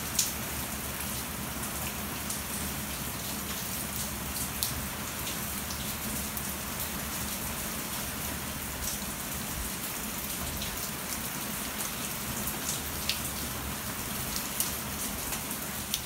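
Heavy typhoon rain falling steadily onto a flooded paved yard: a constant hiss of drops splashing into standing water, with scattered sharper drip and splash ticks.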